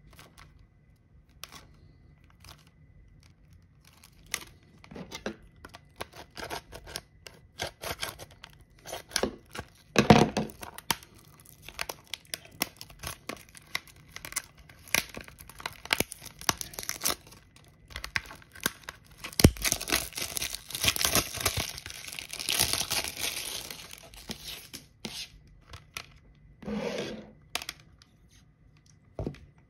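Cellophane shrink-wrap being torn and peeled off a plastic CD jewel case: scattered crinkles and tearing, with a longer stretch of dense crinkling about two-thirds of the way through.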